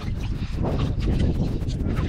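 Wind rumbling on the microphone, over the irregular swishing and sloshing of hands stirring verm (rock worms) around in a bucket of water to rinse the sand out of them.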